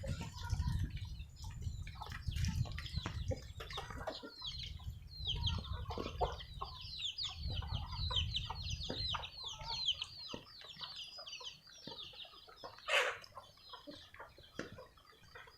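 Village chickens clucking, with a long run of rapid high chirps in the middle. A low rumble runs under the first part and stops, and there is one short loud burst near the end.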